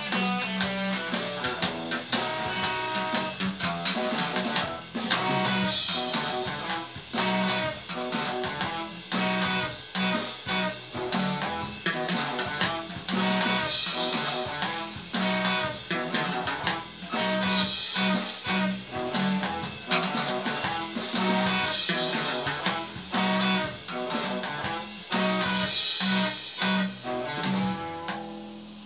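Electric guitar played with the fingers: a continuous, busy run of plucked notes over a repeated low note, trailing off near the end.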